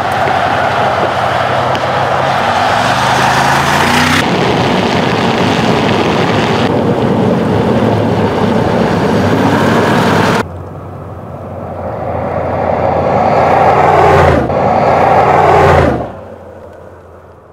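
Mercedes-AMG G 63's twin-turbo V8 running as the SUV drives, with tyre and wind noise, in several abruptly cut shots. About ten seconds in the sound drops, then swells as the vehicle comes closer, and near the end it fades away.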